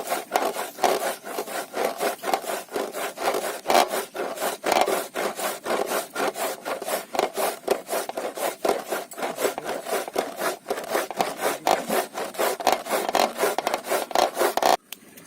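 Pumpkin being grated by hand: a rapid, even run of rasping strokes, about three to four a second, that stops abruptly near the end.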